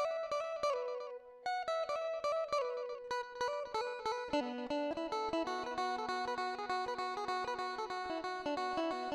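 Background music: a quick melody of short plucked notes that drops away briefly about a second in, then carries on busier.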